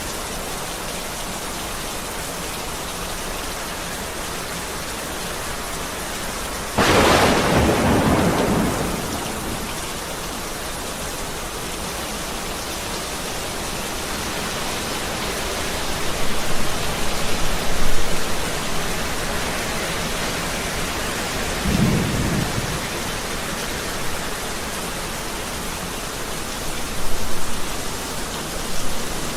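Heavy rain falling steadily, with a sudden loud thunderclap about seven seconds in that rolls away over a couple of seconds, and a shorter, lower rumble of thunder later.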